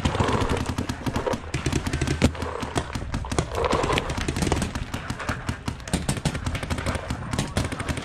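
Paintball markers firing in rapid strings, a dense run of sharp pops, many to the second.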